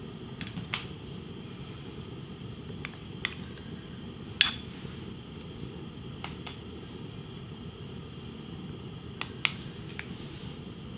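Scattered light clicks and taps, the loudest about four seconds in, from a spoon and a small glass bowl against a stainless steel pot as seasonings are added, over a steady low hum.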